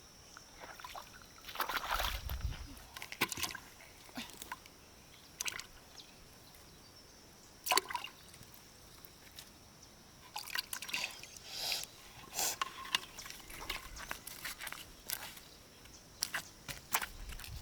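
Water sloshing and dripping in short, irregular splashes.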